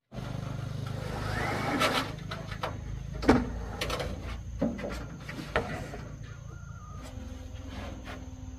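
Corrugated roofing sheets being handled on a stack, giving several sharp knocks and scrapes over a steady low engine hum.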